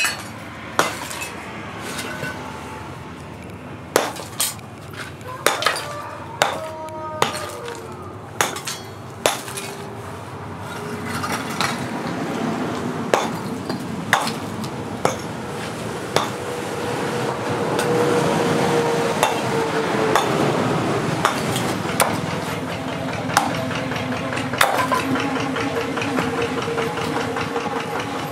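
A hollow concrete block being smashed apart with hard blows from a hand tool: sharp knocks at irregular intervals, roughly one a second. A background drone swells through the middle and then eases.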